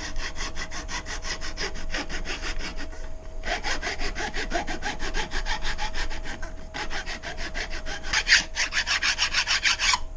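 Hand file rasping across a sand-cast gearbox housing in quick short strokes, about five a second, taking the casting flashing off the O-ring mating surface. The strokes pause briefly twice, about a third and two thirds of the way in.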